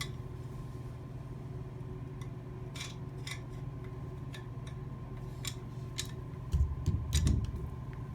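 Light metallic clicks and scrapes of pump pliers working an old Delta shower cartridge loose and pulling it out of the valve body, with a few low thuds near the end.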